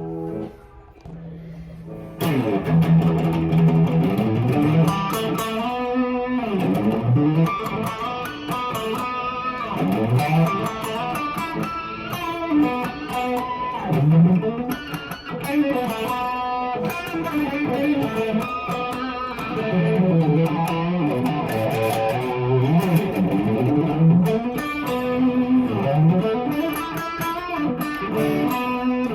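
Electric guitar playing a melodic lead line, with notes that bend and slide in pitch. It starts about two seconds in, after a brief pause.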